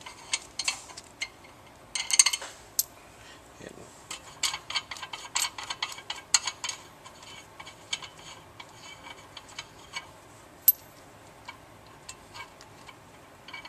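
Stay bolt nuts and washers being spun off by hand from the threaded studs of a Grundfos CR10 pump head: a run of small metallic clicks and clinks, with a denser flurry about two seconds in and one sharp click about three quarters through.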